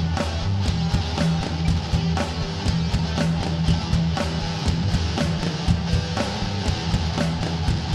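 Rock background music with electric guitar and a steady drum beat.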